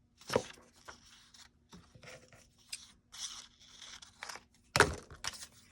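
Paper and craft pieces being handled on a desk: crisp rustling and crinkling, with two sharper knocks, one just after the start and one near the end.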